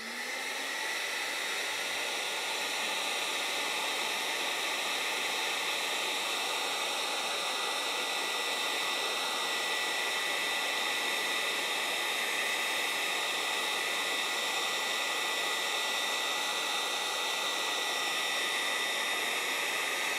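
Electric heat gun coming on and then running steadily, a rush of blown air with a high fan whine, heating heat-shrink tubing.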